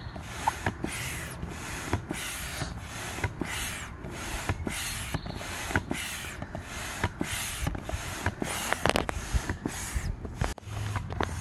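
Manual barrel air pump pushing air through a ribbed hose into an Intex Excursion 5 inflatable boat's air chamber, each stroke a short whoosh of air, about two strokes a second, with small clicks from the pump. The chamber is being topped up to its rated inflation.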